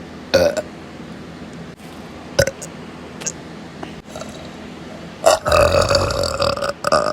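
Burping: a short burp about a third of a second in, then a long drawn-out burp from about five seconds in almost to the end, with a couple of small clicks between.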